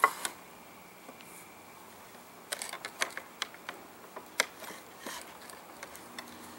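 Wooden knocks, clicks and taps from the shave pony's hinged jaw and the clamped stick as it is handled and shifted. One sharp knock at the very start, then a run of quick, irregular clicks in the middle.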